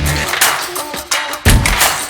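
Background music with a heavy drum beat: deep bass thumps and crashing cymbal hits.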